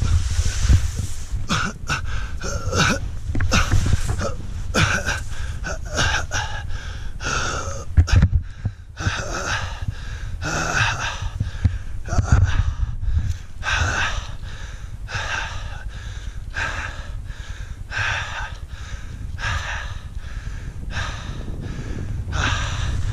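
A winded person gasping and wheezing for breath in a rapid, ragged series, knocked breathless by a hard fall. Wind rumbles on the helmet camera's microphone underneath.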